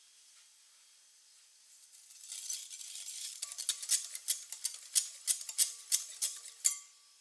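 Wire whisk beating egg yolks and sugar in a glass bowl: a wet swishing that starts about two seconds in, then sharp clicks of the wires striking the glass about three times a second, stopping shortly before the end.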